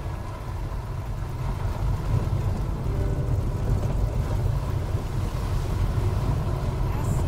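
Low, uneven rumble of an off-road vehicle driving, with wind buffeting the microphone.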